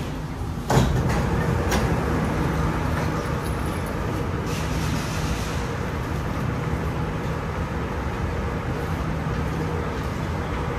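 Inside a Singapore MRT train: a sharp clunk about a second in and a lighter one just after, then the train's steady rumble and hum, with a brief hiss around the middle.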